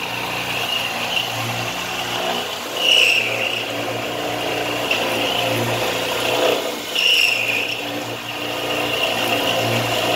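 Enshu 609DD-1 CNC machining center milling a metal block: the spindle runs with a steady low hum and high whine while the end mill cuts. The sound swells about every four seconds as the programmed cutting pass repeats.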